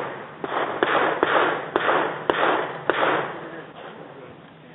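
Pistol gunfire: about six shots at uneven intervals over roughly three seconds, each followed by a short echoing wash, then quieter to the end.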